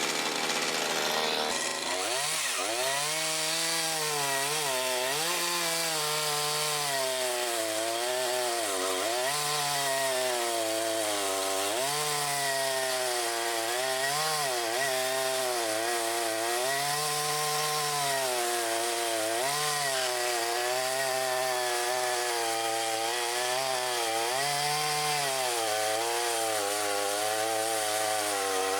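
Makita DCS5121 50 cc two-stroke gasoline chainsaw running at a steady high speed. About two seconds in, its engine speed starts dipping and recovering every second or two, as it does under load while cutting wood.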